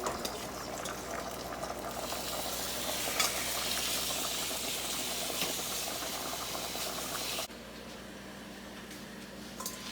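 Chicken breast frying in butter in a pot on the stove: a steady sizzle that swells a little, then cuts off abruptly about seven and a half seconds in.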